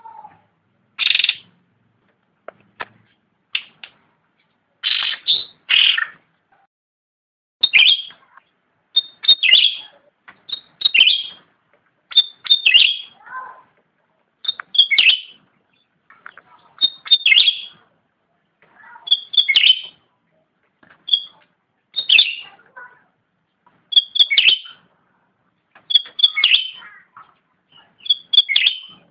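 Cucak rante, an Indonesian songbird, singing in full voice: short phrases of sharp, high notes, each often opening with a quick pair of notes, repeated about every one to two seconds.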